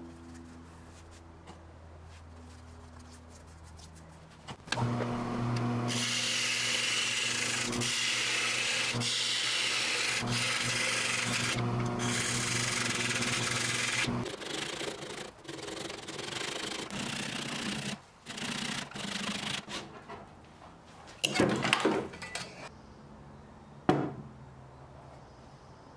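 Wood lathe running, then a turning tool cutting into the spinning wood near the chuck: a loud, steady scraping hiss over the lathe's hum for about ten seconds. After that a handsaw cuts through the remaining stub in short uneven strokes, and there are two sharp knocks near the end.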